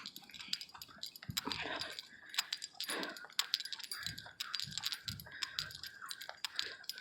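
Light metal jingling and clicking from a dog's leash hardware and collar as the dog moves about on a short tether, with a few soft rustles.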